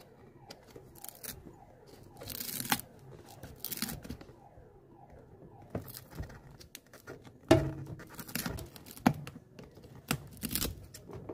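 Worn heel top piece being gripped and prised off a shoe heel with cobbler's pincers: irregular tearing and crunching, with sharp cracks as it pulls away, the loudest about 2.5 and 7.5 seconds in.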